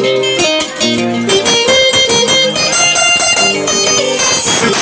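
Instrumental dance music led by quick plucked-string notes over regular percussion hits.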